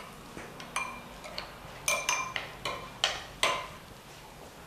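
A metal spoon stirs thick yogurt raita in a glass bowl, clinking against the glass again and again at an uneven pace. Each clink has a short, bright ring.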